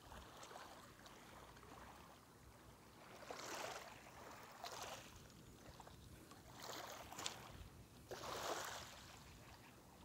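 Faint lapping of small waves on a pebble shore from a calm sea, rising in four soft washes over a low hiss.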